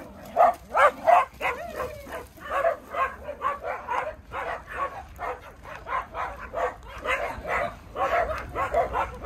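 Several small dogs barking over and over, about two to three short barks a second, with some barks overlapping, while the pack runs around.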